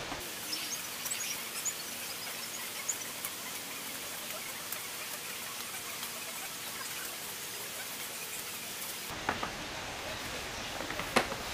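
Steady hiss of background noise with no clear source. Near the end come a few light clicks and knocks as hands handle the pipe on the heat bender.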